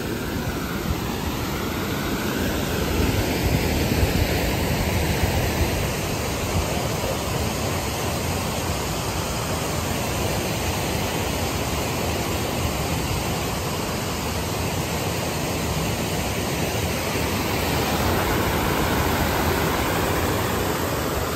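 A 65-foot waterfall rushing steadily: a loud, unbroken noise of falling water.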